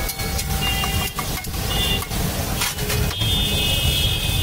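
Metal spatula scraping and tapping on a large flat steel griddle (tawa) as an egg mixture is spread and chopped, a few sharp strikes among the scraping, over a steady low rumble; brief high-pitched steady tones sound in the second half.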